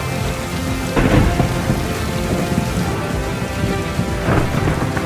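Thunderstorm: steady heavy rain with rolls of thunder, one about a second in and another near the end.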